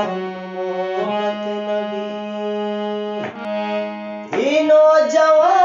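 Harmonium playing an instrumental interlude of held, reedy notes between sung lines of a ghazal, becoming markedly louder about four seconds in.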